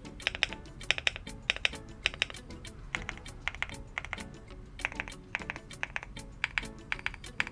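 Typing on a stock Leobog Hi8 mechanical keyboard, with quick runs of keystrokes in short bursts over background music.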